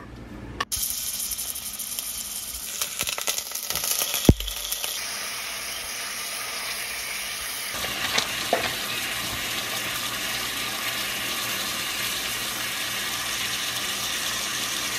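Garlic sizzling in hot oil in a cooking pot: a steady sizzle that starts abruptly just under a second in, crackling for the next few seconds, with a single knock about four seconds in.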